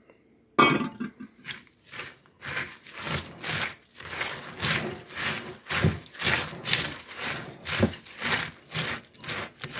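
White spatula scraping and folding through a sticky mix of melted chocolate, cereal and mini marshmallows in a glass bowl, in repeated strokes about twice a second.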